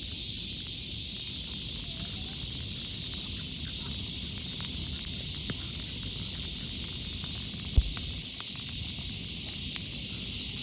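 Fire crackling: a steady hiss with many small, irregular pops, and one louder pop about eight seconds in.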